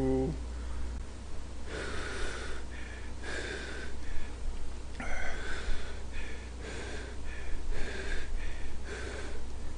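A person blowing on a hot mouthful of noodles held on chopsticks, in a series of short puffs of breath, to cool it before eating.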